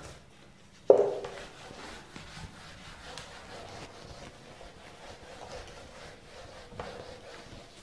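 A whiteboard duster wiping across a whiteboard in repeated rubbing strokes, after a sharp knock about a second in.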